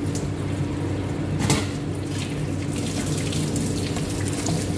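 Kitchen tap running into a sink while baking utensils are rinsed by hand under the stream, with light knocks of the utensils and a sharper knock about a second and a half in.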